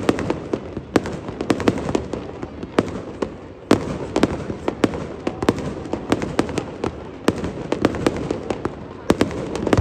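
Fireworks display: aerial shells bursting in quick, irregular succession, many sharp bangs over a constant crackle, growing louder and denser from just before four seconds in.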